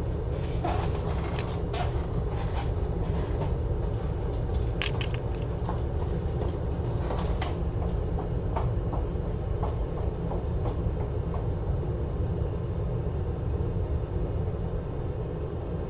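Steady low whirring of a fan at a microsoldering bench, with light clicks and taps of small tools during the soldering, most of them in the first half.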